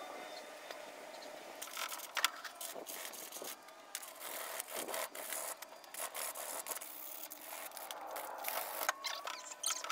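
A gloved hand rubbing and scrubbing the hub of an old 1948 Willys truck steering wheel with a cloth, in irregular scraping strokes, cleaning it up to take paint.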